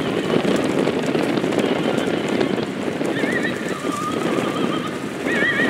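A formation of Aermacchi MB-339 jet trainers flying past with a steady jet roar. About halfway through, a wavering whine of several pitches comes in over it.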